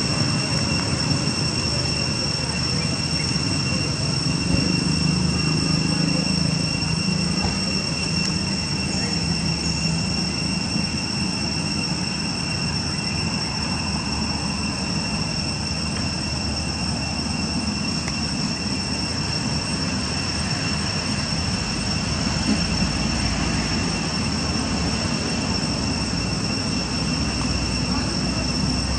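Steady outdoor drone of insects, held at one high pitch without a break, over a constant rushing hiss. A low rumble swells for a few seconds about four seconds in.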